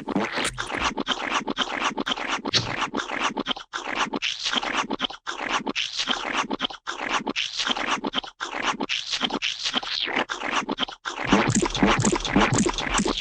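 Gloopy paint-splat sound effect: a rapid, continuous run of short wet splatting and squelching strokes, getting louder and heavier near the end.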